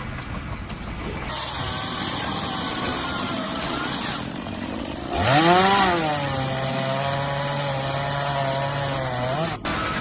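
A power tool running with a steady, high hiss of cutting. About halfway through, a motor hum rises in pitch and settles into a steady drone, and everything cuts off abruptly near the end.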